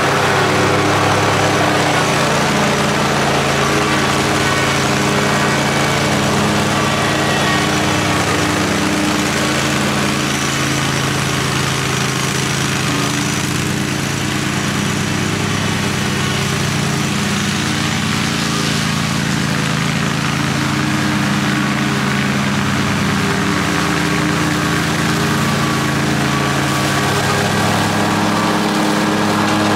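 60-inch zero-turn mower running at a steady speed while mowing, its engine giving an even drone.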